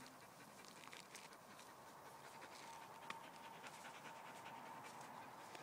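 Faint dog panting, soft quick breaths.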